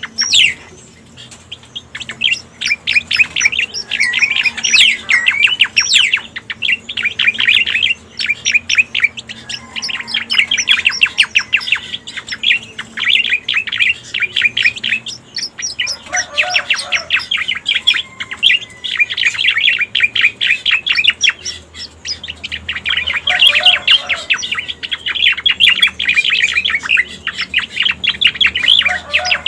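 Cica koreng (striated grassbird) song played as a lure call: long phrases of rapid, high chirps and trills, repeated with short pauses between them.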